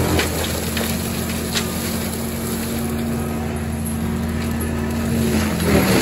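Tracked skid steer with a forestry mulcher head running: a steady engine and hydraulic drone with a held hum. Near the end comes a short rush of noise as the head works into the brush.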